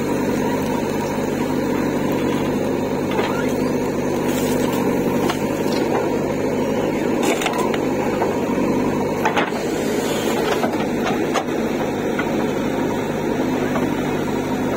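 Diesel engine of a JCB 3DX backhoe loader running steadily under load as the backhoe digs soil and dumps it into a tractor trolley, with a few scattered knocks of the bucket and falling earth.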